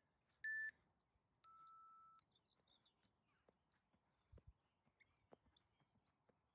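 Interval timer countdown: a short high beep, the last of a series a second apart, then one longer, lower beep that signals the start of the work interval. Faint scattered taps follow.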